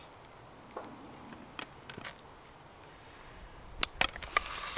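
Light taps and scrapes of a wooden spatula and a small frying pan against a metal plate as an omelette is slid out of the pan, with two sharp clicks of metal on metal near the end.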